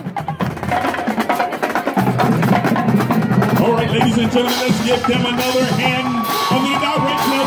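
High school marching band playing, led by drums and percussion, with a fuller, lower layer joining about two seconds in.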